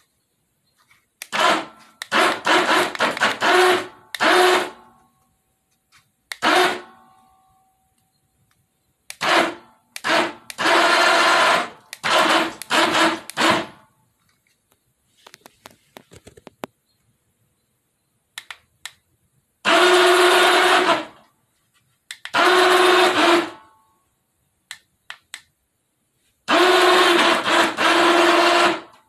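Small electric motors on a radio-controlled snow plow whirring in repeated bursts of one to three seconds, each at a steady pitch, as the plow blade is angled side to side and raised. A few faint clicks come between bursts midway.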